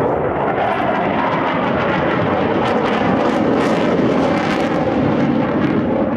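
Panavia Tornado's twin RB199 turbofans at full power with afterburners lit, making loud, steady jet noise with a ragged crackle as the jet banks away overhead.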